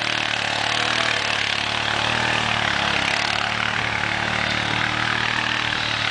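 ATV engine running steadily at low revs, with a steady hiss over it.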